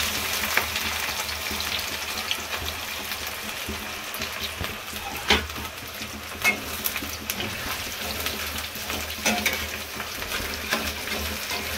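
Sliced onions sizzling as they land in hot oil in a kadai, loudest at first and then settling into a steady fry. A metal spatula stirs them, with scattered sharp clicks and scrapes against the pan.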